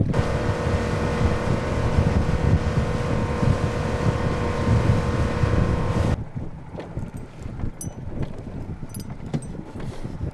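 Boat's outboard motor running at speed, a steady drone with wind and rushing water from the hull. It cuts off abruptly about six seconds in, leaving quieter wind and water noise with a few light clicks.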